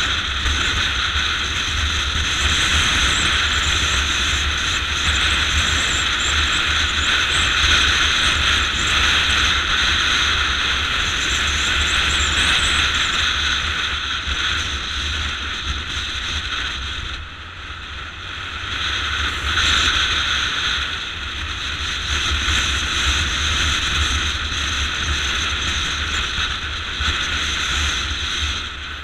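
Motorcycle on the move: engine running under steady wind rush on the GoPro microphone, easing off briefly about two-thirds of the way through before picking up again.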